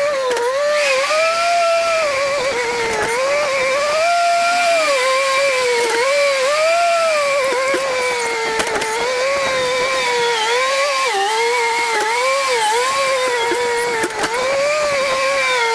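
Engine-driven machine running with a steady whine whose pitch dips and recovers about once a second throughout.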